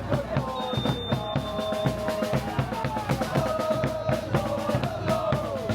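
Music with a steady drum-kit beat, bass drum and snare, under held melodic notes.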